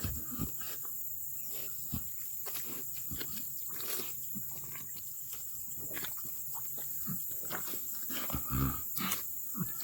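Pasture pigs grunting and snuffling in short irregular sounds, with a louder grunt near the end, over a steady high-pitched insect chorus.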